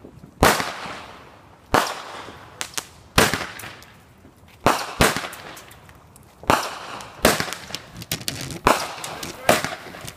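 Fireworks going off: a string of sharp bangs, about one a second, each followed by a fading echo, with a few smaller crackles in between.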